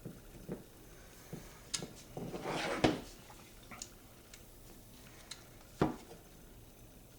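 Small metal parts and tools handled while a lever-action rifle is taken apart: light scattered clicks, a short scrape ending in a sharp knock about three seconds in, and another sharp knock near six seconds.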